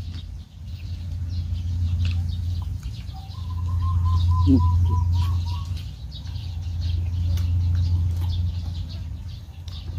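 Hand-eating sounds, with small scattered clicks and smacks of fingers and mouths on rice and fish, over a steady low hum that swells and fades. Near the middle a distant bird gives one drawn-out call of about two and a half seconds.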